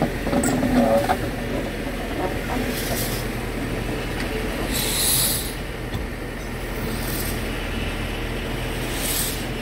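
Steam locomotive running: a steady low rumble with short bursts of steam hiss about three seconds in, about five seconds in and near the end.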